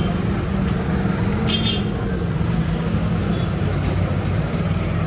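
Steady low rumble of background road traffic, with a few faint light clicks over it.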